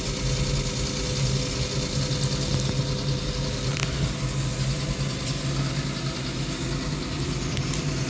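Steady low mechanical hum with constant background noise, and a few faint clicks.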